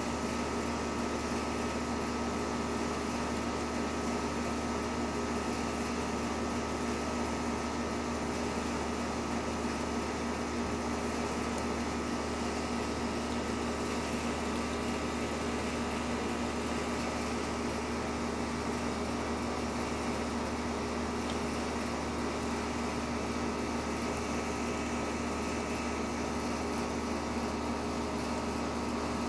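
Steady machine hum with a few constant tones.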